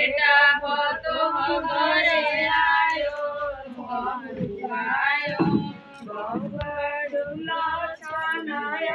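Group of women singing a wedding folk song together, in long held notes.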